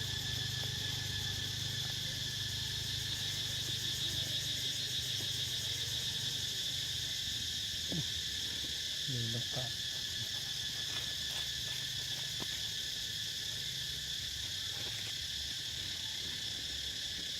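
Steady, finely pulsing insect chorus: a shrill drone high up with a second, lower band beneath it. A low rumble runs underneath.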